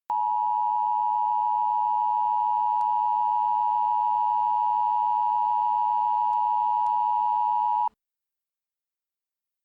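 Emergency Alert System attention tone: one steady, unbroken tone that cuts off suddenly about eight seconds in, signalling the start of the tornado warning message.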